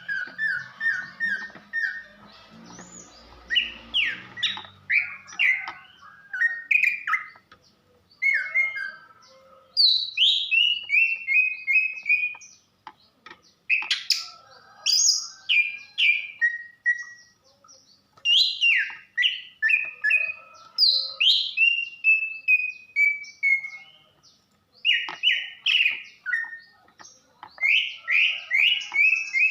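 Female greater green leafbird (cucak ijo) calling: phrases of quick, downward-sliding chirps, several notes at a time, with short pauses between. It is the female call that bird keepers play to raise a male's breeding drive and get him singing.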